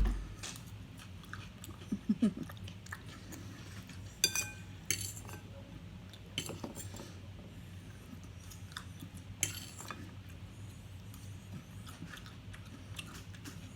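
Cutlery clinking against a plate now and then while eating, with quiet chewing between the clinks.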